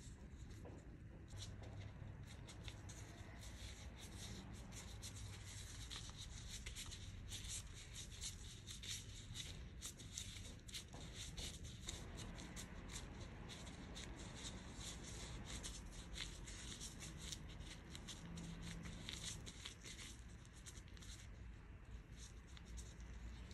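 Faint, continuous crinkling and rustling of thin disposable plastic gloves as hands press, wrap and roll soft dough, with many small crackles.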